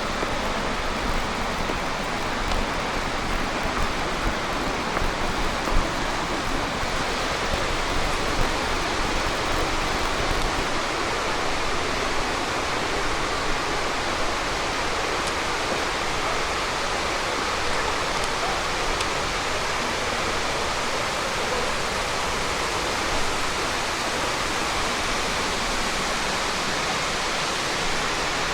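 Shiraito Falls waterfall: falling water rushing in a steady, unbroken hiss.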